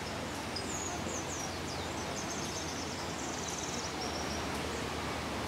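Steady outdoor background noise, with a small bird singing high, quick falling chirps and a short buzzy trill in the first few seconds.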